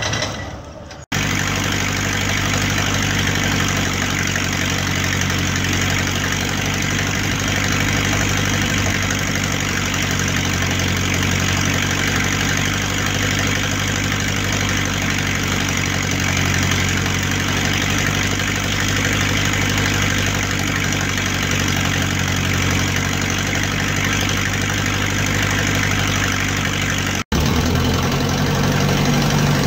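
An engine idling steadily, a low even hum. There is a sudden break about a second in, and another short break near the end, after which the hum's low notes change.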